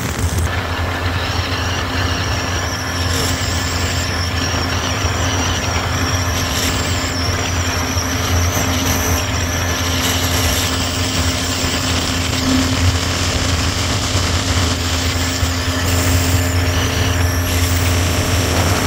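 A 1983 Evinrude 70 hp two-stroke outboard running steadily at high speed, with an even drone and no change in pitch. It is running strong on a fresh set of spark plugs, its lost full-throttle power restored.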